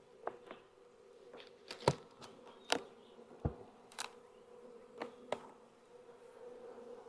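Steady hum of an opened honey bee colony buzzing, with several sharp clicks and knocks scattered through it, the loudest about two seconds in and again a little later.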